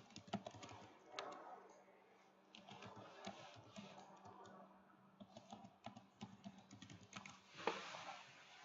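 Faint computer keyboard typing: irregular keystrokes and clicks, with one louder click near the end, over a faint steady hum.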